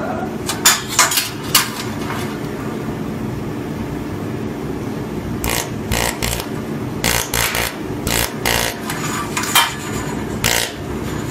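Laser welding machine running with a steady hum, and sharp snaps of single weld pulses tacking a metal letter strip to its base plate: a few about a second in, then an irregular run of them through the second half.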